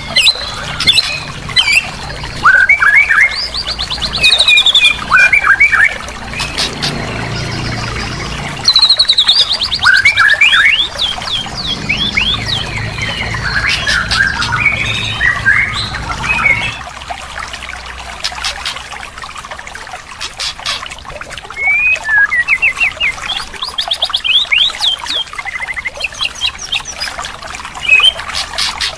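Songbirds singing, a busy run of quick chirps, short whistled phrases and rapid trills with sharp clicks among them. A low rumble runs under the song from about six to seventeen seconds in.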